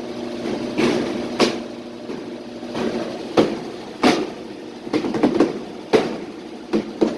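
Washing machine in its spin cycle: a steady motor hum with irregular sharp knocks and clatters every half second to a second.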